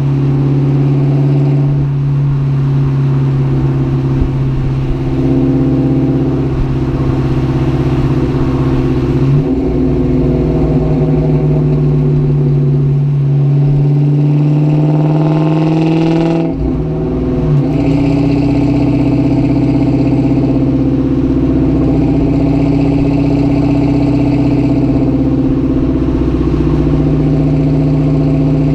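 2004 Mustang GT's 4.6-litre V8 running under way with a steady note. About ten seconds in, the pitch climbs for several seconds as it accelerates, then drops suddenly and settles into a steady cruising note.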